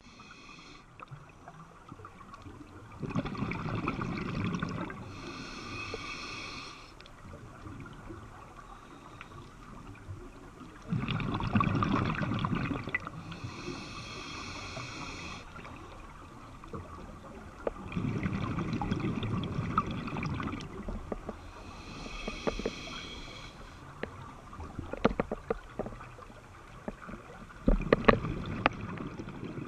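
Scuba diver breathing through a regulator underwater: a bubbling exhale followed by a hissing inhale, about every seven seconds, four breaths in all. A few sharp clicks come near the end.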